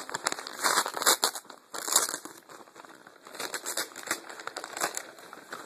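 A package being opened by hand: irregular crinkling, rustling and tearing of paper wrapping.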